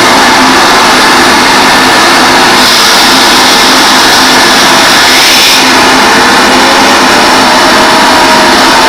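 Harsh noise music played live: a loud, unbroken wall of distorted noise with slow gliding tones that sweep up and down. A brighter hiss comes in about three seconds in and drops out about three seconds later.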